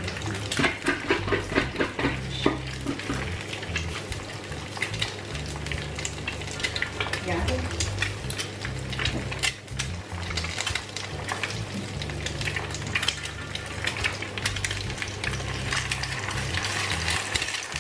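Two eggs frying in hot oil in a frying pan: steady sizzling with many small crackling spatters, busiest in the first few seconds. Near the end a spatula scrapes along the pan under the eggs.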